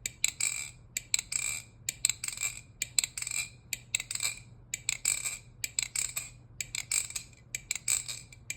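Titanium MachineWise Sasori balisong being flipped in an ice pick grip, its handles and blade clacking together over and over in quick, irregular clusters. With speed channel inlays fitted, the closing has no ring and is clackier and deeper.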